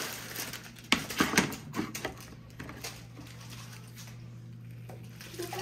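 Plastic hand-held lime squeezer clacking as small limes are pressed: a quick cluster of sharp clicks about a second in, then it goes quieter.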